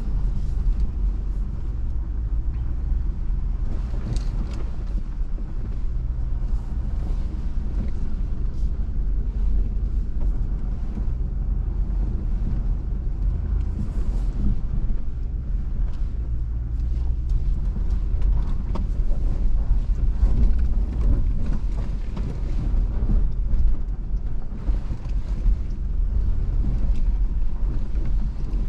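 A vehicle's engine and running gear rumbling steadily as it crawls over a sandy, rocky dirt trail, heard from inside the cab, with scattered knocks and rattles from the bumps.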